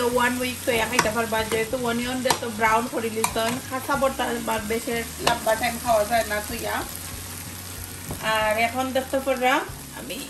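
Long metal spoon scraping and knocking around a non-stick frying pan while stirring sliced onions frying with a sizzle, in repeated strokes that ease off briefly about three quarters of the way through.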